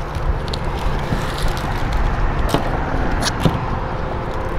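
Steady outdoor background rumble with a faint steady hum, broken by a few short sharp clicks and crinkles as sandwiches and their paper wrappers are handled.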